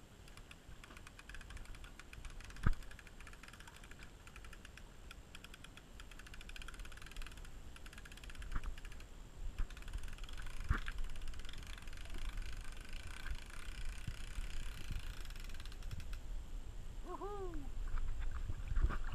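Patio umbrella being opened and adjusted on its pole: quick light clicking and rattling, muffled through a waterproof camera housing, with a couple of louder knocks.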